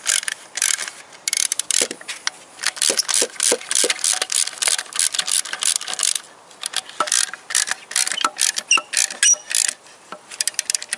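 Hand ratchet wrench clicking in quick back-and-forth strokes as a bolt on an engine-block bracket is turned, with a short pause about six seconds in.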